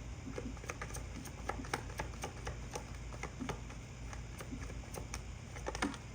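Tarot cards being handled, a run of light, irregular clicks and taps as the cards are drawn and laid out.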